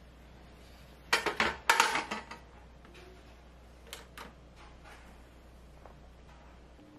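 The metal drip-tray grate of a De'Longhi espresso machine set into place with a short rattling clatter, followed a couple of seconds later by light clicks as one of the machine's front buttons is pressed.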